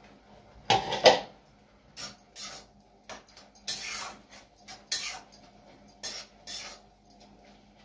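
A lid clatters as it comes off a kadhai, then a spoon scrapes and clinks against the pan in short, irregular strokes as the greens are stirred.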